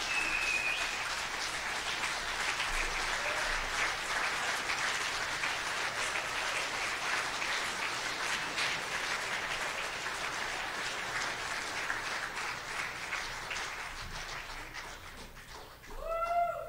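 An audience applauding steadily, with a short high whoop just after it begins. The clapping dies away about fifteen seconds in, and a voice calls out near the end.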